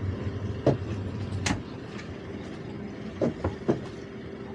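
Towboat's outboard engine running steadily while towing a sailboat on a line, with a few short sharp knocks about a second in and again near the three-second mark.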